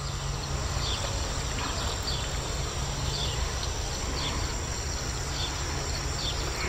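Insects calling steadily in the garden: a constant high trill with faint short chirps repeating about once a second. A steady low rumble runs underneath.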